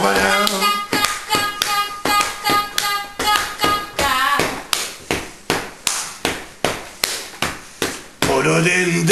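Hand-and-leg body percussion: a steady beat of sharp slaps, about three a second. A pitched voice sounds over the first half, drops out so the slaps are heard alone, then comes back near the end.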